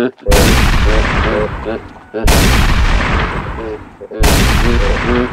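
Three loud gunshots about two seconds apart, each dying away over a second or more.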